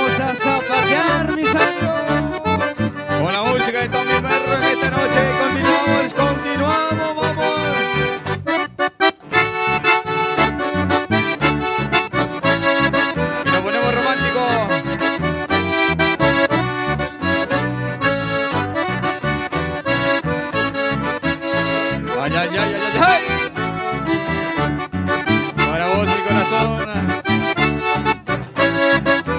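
Accordion-led traditional folk music with a steady beat, briefly dropping out a little before nine seconds.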